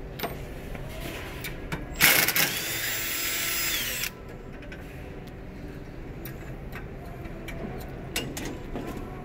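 A cordless drill with a 7/16 socket runs for about two seconds, backing out one of the long bolts that hold a checkout conveyor's back cover. Its motor whine holds a steady pitch and cuts off suddenly, and a few light clicks follow.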